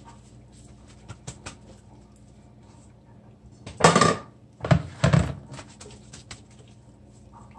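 Paper towel rustling against a whole raw fish as it is patted dry, with scattered light clicks. About four seconds in come three louder, brief handling noises in quick succession.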